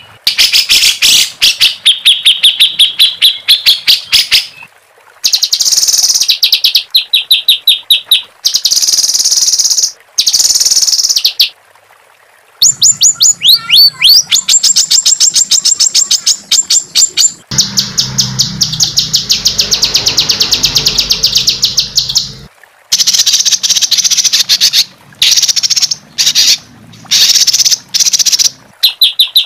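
Songbird masteran (training) song made of harsh, fast 'roll tembak' trills: rapid runs of high repeated notes. They come in stretches of one to a few seconds that start and stop abruptly, as if spliced together.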